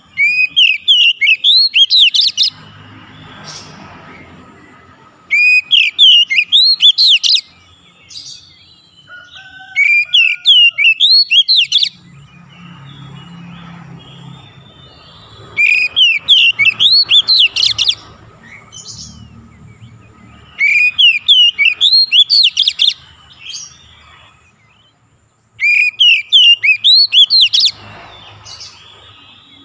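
Oriental magpie-robin (kacer) song: six loud bursts of rapid, rising whistled notes, each about two seconds long, repeated about every five seconds.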